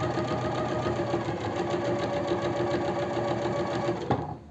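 Sewing machine running steadily, stitching a bias binding onto a neckline with elastic tucked underneath. It stops about four seconds in, with a click.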